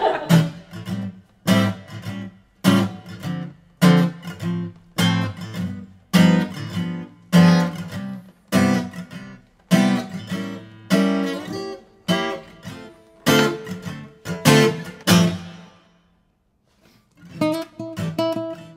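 Background music: an acoustic guitar strummed in a steady, even rhythm, which stops for about a second near the end and then starts again with a different pattern.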